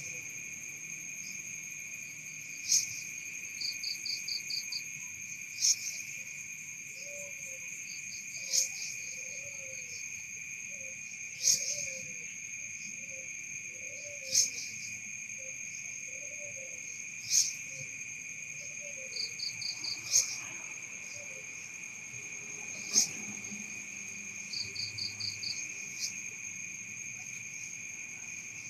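Night insect chorus: a steady high cricket trill with a second, higher drone. Over it come a sharp click about every three seconds and short quick runs of pulses, and through the middle a lower call repeats about every second and a half.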